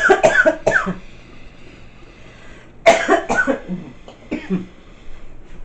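A person coughing in two short bouts, one at the start and another about three seconds in.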